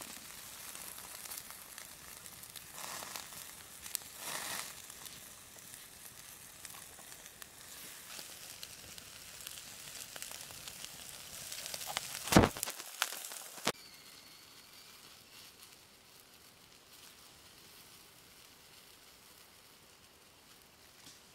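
Chicken and vegetables sizzling on a grill grate over a crackling wood fire, with scattered pops and one sharp, loud crack about twelve seconds in. Shortly after, the sizzle cuts off abruptly and only a quiet hush remains.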